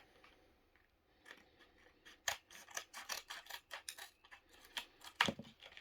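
Scissors cutting through thin cardboard and plastic packaging: a quick run of short snips starting about a second in, with one sharper cut near the end.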